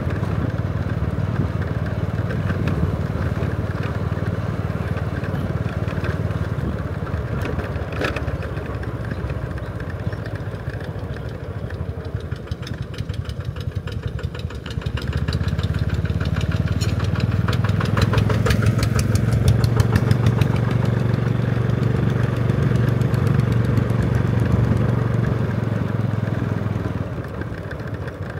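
Motor vehicle engine running steadily. It grows louder about halfway through and eases off near the end.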